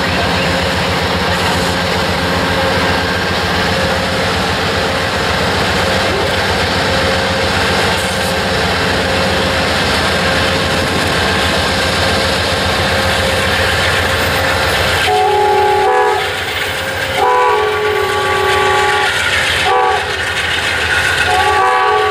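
Two Amtrak GE Genesis diesel locomotives hauling a passenger train slowly past, their engines running with a steady low drone. About two-thirds of the way in the engine sound drops and a locomotive horn sounds three times: the first blast short, the second longer, the last still sounding at the end.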